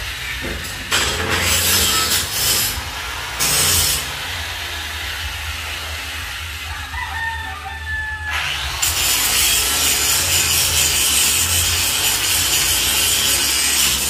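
Metalwork on steel window grills: two short bursts of harsh hissing noise, then the noise runs steadily from about nine seconds in, over a low electrical hum. A rooster crows faintly in the quieter middle stretch.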